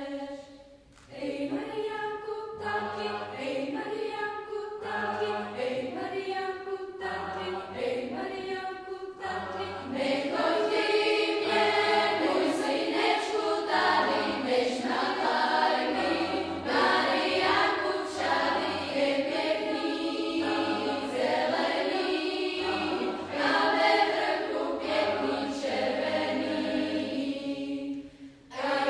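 Youth choir singing in harmony with piano accompaniment. It breaks off briefly about a second in and again near the end, and grows louder about ten seconds in.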